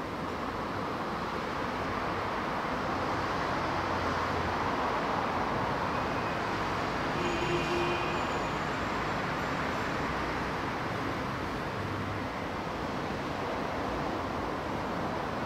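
A steady rushing noise like distant road traffic, swelling over the first few seconds and easing off after the middle, with a few faint, brief tones about halfway through.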